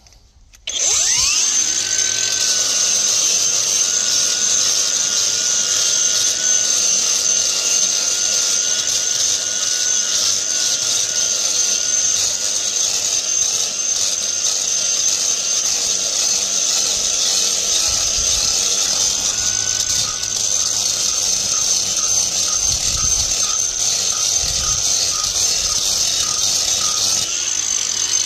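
Cordless angle grinder starting up about a second in and then running steadily with a high whine as it grinds down the concrete benching inside a manhole, cutting back a narrowing in the drain channel that has been causing blockages.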